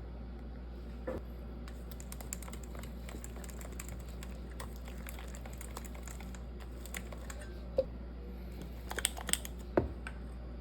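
Kitchen work sounds: a patter of small, irregular clicks and ticks, with a sharper knock about eight seconds in and a cluster of louder knocks near the end.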